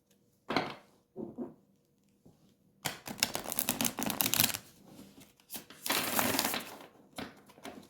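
Tarot cards being shuffled by hand: a couple of soft card sounds, then two long runs of rapid papery clicks, the second starting about six seconds in.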